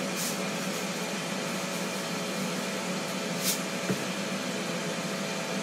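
Steady kitchen hiss with a low hum, with brief high rustles near the start and about three and a half seconds in as kosher salt is sprinkled by hand, and a light knock just before four seconds in as a seasoning container is set down on the counter.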